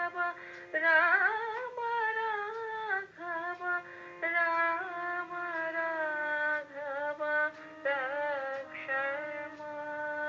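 A woman singing a slow melody in long held phrases, her notes wavering with vibrato, with short breaths between phrases.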